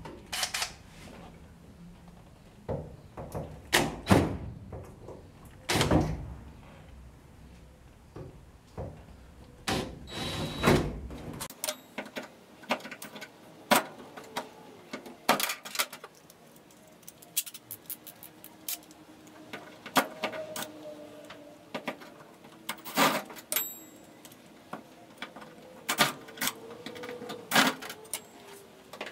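Scattered knocks, clicks and metallic rattles of tools and screws as the floor access panel over the transmission is worked loose in a 1949 Chevrolet 3100 pickup's cab. A low rumble underneath stops about a third of the way in.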